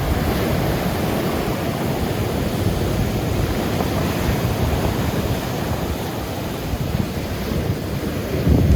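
Heavy typhoon-driven surf breaking and washing on the shore, a continuous churning rush with a louder surge near the end. Wind buffets the microphone with a low rumble.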